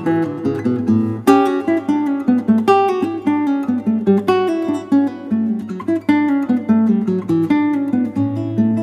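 Background music on acoustic guitar: a quick, continuous run of plucked notes.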